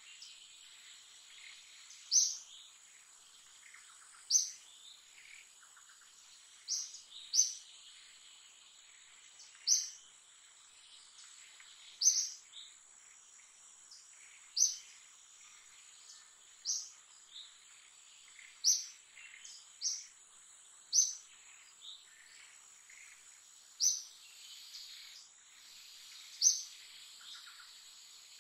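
A bird repeating a short, sharp, high call, slightly falling in pitch, every one to two seconds and sometimes twice in quick succession, over a steady high-pitched insect drone.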